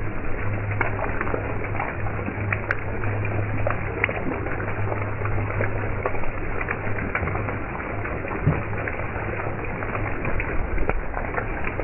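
Heavy rain pelting a flooded road: a dense hiss of rain with many sharp splats of individual drops. A low steady hum runs underneath and fades about two-thirds of the way in.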